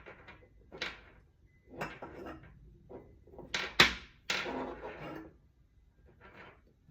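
Wind chime parts handled and knocked together while the hammer's cord is shifted, a run of short rustles and light knocks with one sharp click about four seconds in.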